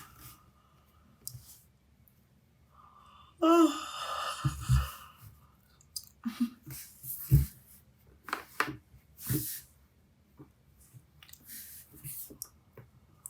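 A young woman yawning: one long voiced yawn whose pitch slides, about a third of the way in, followed by a run of short clicks and rustles.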